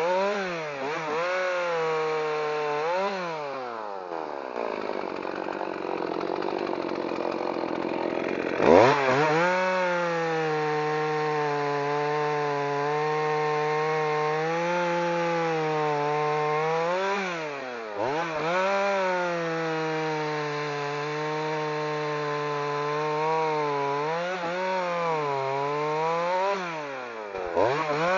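Partner 540 two-stroke chainsaw cutting through birch logs at high revs, its engine note dipping and recovering several times as the chain works through the wood. For several seconds early on the note sinks low under a rasping cutting noise, then surges back sharply about nine seconds in.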